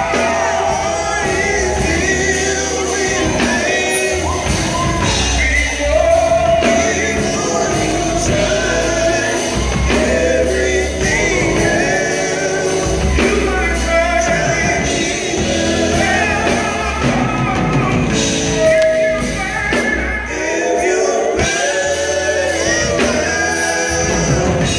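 Live gospel vocal group singing into microphones, backed by a band of drums, keyboard and guitar.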